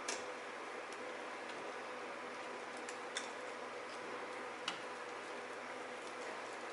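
Three light clicks, spaced a second or more apart, over a steady low room hiss, as objects are handled on a bench.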